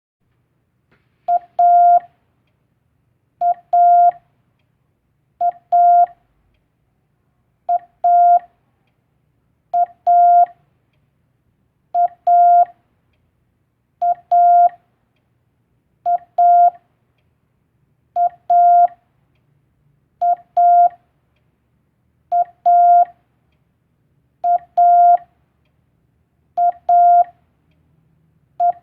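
Morse code (CW telegraphy) sidetone sending the letter A, a short dit then a longer dah, on a single steady tone. The pair repeats about every two seconds.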